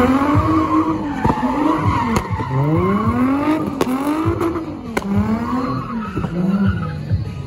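Nissan 350Z's 3.5-litre V6 revving up and off about once a second while drifting donuts, with tyres screeching and a few sharp cracks.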